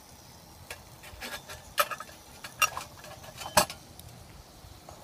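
Sharp metal clinks and light scrapes of a brass simmer ring being fitted over a lit brass alcohol stove burner and its sliding cover set, turning the flame down to a simmer. About half a dozen clinks, the loudest about three and a half seconds in.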